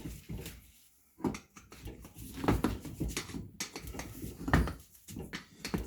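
Motorcycle tire being worked off its rim by hand: irregular scraping and rubbing of rubber against the rim, with a few knocks.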